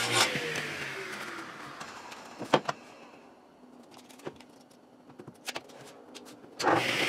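Table saw blade coasting down after a rip cut through a board, its whine falling in pitch and fading over the first few seconds. A few sharp knocks of wood being handled on the saw table follow, and near the end the saw starts up again.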